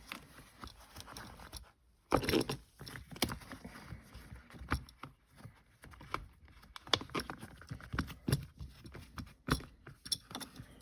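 Irregular clicks, light knocks and scraping of parts being handled while the shifter's top boot is fitted over its clips. The loudest knock comes about two seconds in.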